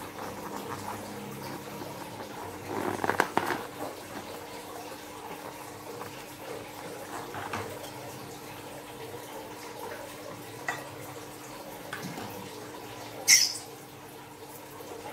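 Hands rubbing and squeezing a slime-filled rubber balloon, with small rubber squeaks and a louder cluster of clicks about three seconds in. Near the end the balloon is squeezed and slime squirts out of its open neck into a dish of water with a short, loud wet squelch.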